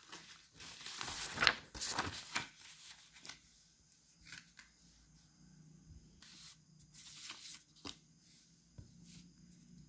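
Sheets of paper rustling and sliding as they are handled and turned over. A few louder rustles come in the first couple of seconds, then fainter ones.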